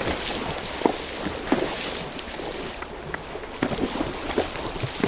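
A horse walking, its hooves knocking irregularly, over a steady rush of wind on the microphone.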